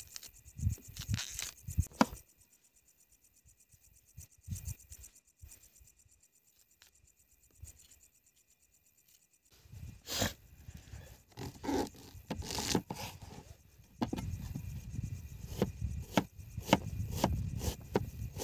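An onion being peeled with a knife, with a few rubs and scrapes of the dry skin, then a quiet stretch. From about halfway, a kitchen knife slicing an onion on a plastic cutting board, with repeated sharp taps of the blade on the board that come more often near the end.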